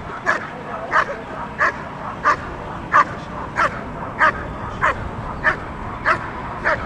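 German Shepherd barking steadily at about one and a half barks a second while guarding a motionless helper in a Schutzhund protection routine.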